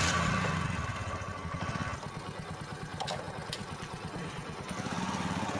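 Small single-cylinder motorcycle engine idling just after starting, with a fast, even beat. It runs a little higher at first, settles after a couple of seconds, and picks up slightly near the end.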